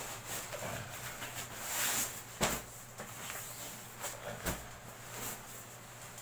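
Military sleeping bag and its stuff sack rustling as the bag is pulled out and spread flat, with two thumps about two and a half and four and a half seconds in.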